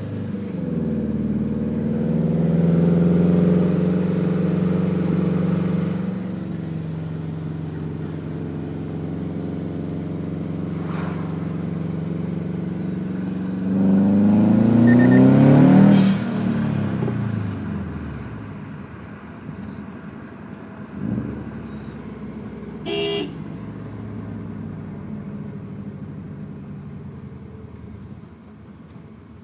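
Subaru STI's turbocharged flat-four engine running with a lifter tick, revved once about halfway through, its pitch rising and then falling back. A short high beep sounds about three quarters of the way through.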